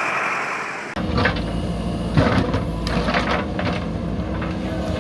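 A steady hiss, then from about a second in a heavy engine running at a low, steady note with scattered clanks and knocks of metal machinery.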